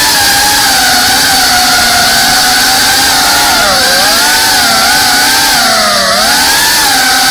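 FPV drone's electric motors and propellers whining loudly as it flies. The pitch wavers with the throttle and dips twice, about halfway through and again near the end.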